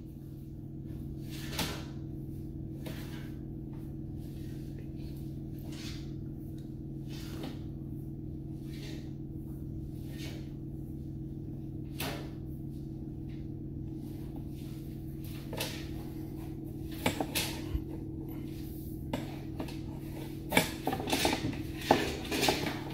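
A steady low electrical or machine hum with scattered knocks and clicks, which come more often and louder near the end.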